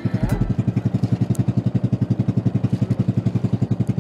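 Small boat's engine running steadily under way, a fast, even chugging.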